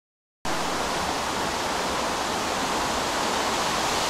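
A steady fizzing hiss of burning pyrotechnics, a lit fuse or flare, starting abruptly about half a second in after a moment of dead silence and growing slightly louder.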